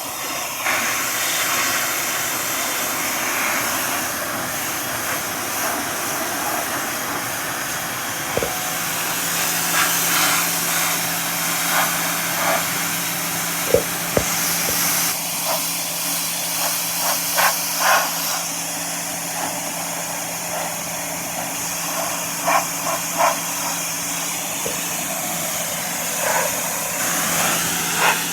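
Ryobi brushless electric pressure washer spraying plain water: a steady high hiss of the jet with scattered sharp spatters as it hits the dirty surface, and the pump motor's steady hum coming in about eight seconds in.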